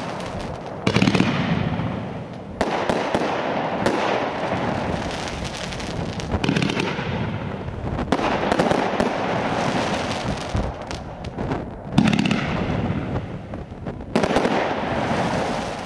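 Fireworks display: aerial shells bursting with sharp bangs every few seconds, with dense crackling from crackling stars between them.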